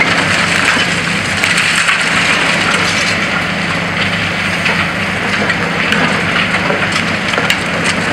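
Diesel engines of high-reach demolition excavators running steadily under a continuous hiss, with scattered cracking and crunching of concrete and masonry as the building is broken apart.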